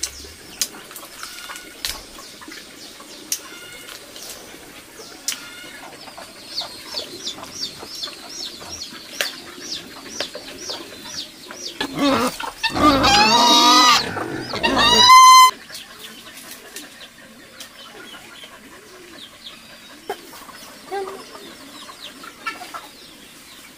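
Helmeted guineafowl calling: a loud, harsh run of rapidly repeated cries lasting about three seconds around the middle, over faint chirping and clucking of farmyard fowl.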